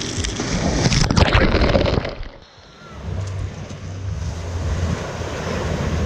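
Sea waves washing up over the camera at the water's edge, loud splashing and fizzing foam. About two seconds in the sound drops away briefly, then steady surf comes back with wind rumbling on the microphone.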